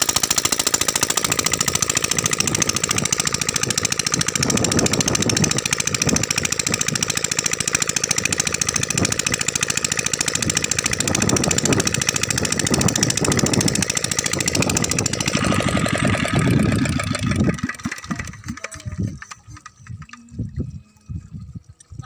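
Single-cylinder 7 hp diesel engine running steadily with a fast knocking beat, then shut off near the end, slowing through a few last strokes to a stop.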